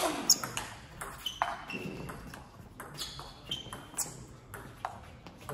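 Table tennis rally: the ball clicking sharply off the rackets and the table, each hit with a short ringing tone, about two hits a second.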